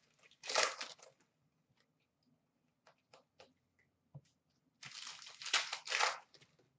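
Foil hockey-card pack wrapper crinkling and tearing as it is ripped open, in two bursts, about half a second in and again around five seconds in, with a few faint clicks of cards being handled between.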